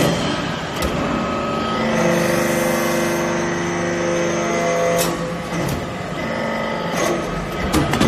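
Hydraulic metal-chip briquetting press working as its ram presses aluminium chips into the mould. A steady pump whine under load stops with a sharp click about five seconds in, and a few more clicks follow near the end.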